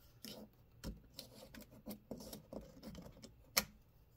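3D printer at work, making irregular light clicks and ticks, about a dozen in all, the sharpest about three and a half seconds in.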